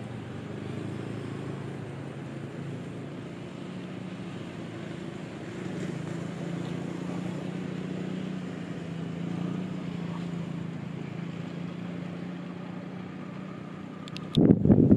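Steady low engine hum from an unseen motor vehicle. About fourteen seconds in, a sudden loud buffeting noise hits the microphone.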